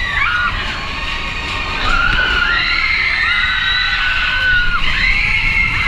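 Several people screaming together: long, high, held screams that overlap and rise and fall over a steady rumble.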